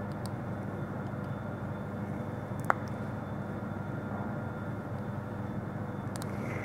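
Steady room hum, with one sharp click a little over two and a half seconds in from the micropipette and small plastic tube being handled.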